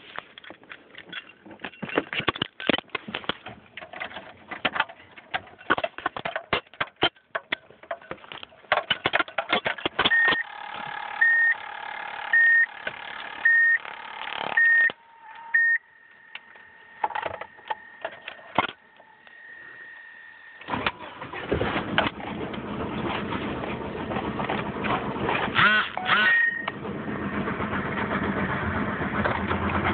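Clicks and handling knocks, then a car's warning chime beeping about once a second for several seconds. About two thirds of the way through, the 1995 Subaru Impreza's flat-four engine cranks, starts and runs, growing louder toward the end; the owner says it has rod knock that an oil change and additives did not cure.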